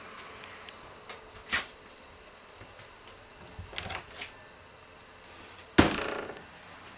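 Scattered thumps and knocks as someone walks through a travel trailer, with one sharp, much louder knock near the end that rings out briefly.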